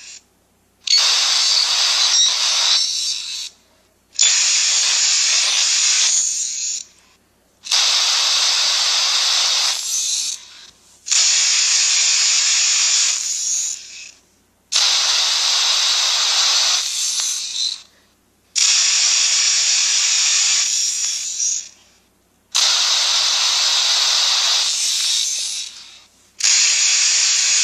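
Two devices running the Talking Carl app repeating each other's playback in a loop, each pass pitched up and garbled into harsh, hissy noise. About eight bursts of roughly three seconds each, with short silent gaps between them.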